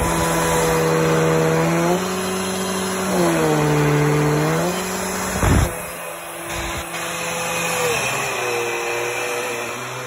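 Dirt Devil 12-amp upright vacuum cleaner running over a blanket, its motor whine sagging in pitch and recovering twice. A sharp thump comes about halfway through, and the running continues a little quieter afterwards.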